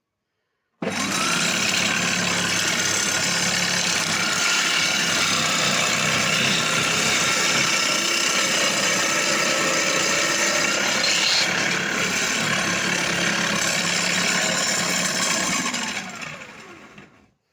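Homemade circular saw driven by an electric drill, switched on about a second in and running steadily while sawing wood, then winding down near the end after it is switched off.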